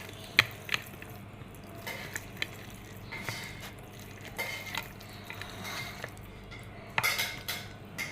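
Chopsticks tapping and scraping against a dish of noodles: scattered light clicks, with a brief cluster of louder clicks about seven seconds in.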